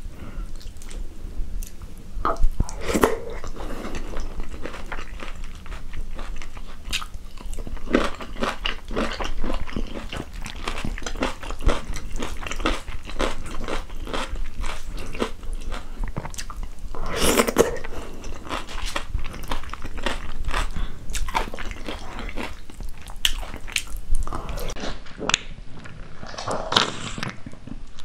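Close-miked eating sounds of a person eating rice and spicy chicken stew with her fingers: steady chewing with many small wet mouth clicks and several louder bursts.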